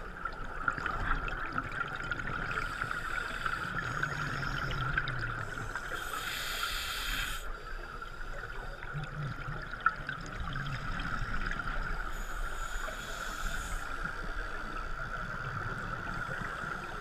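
Scuba diver breathing through a regulator underwater: three bursts of exhaled bubbles a few seconds apart, over a steady high tone.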